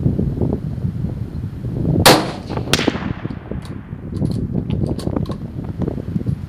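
A single shot from a Savage Axis bolt-action rifle in .223 Remington about two seconds in, with a ringing echo trailing off after it, over steady wind on the microphone. A few light clicks follow.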